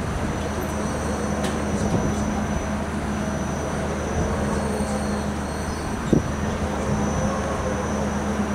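Spring Break giant pendulum fairground ride running empty on a test run: a steady low machine hum and drone from its drive. A single knock about six seconds in.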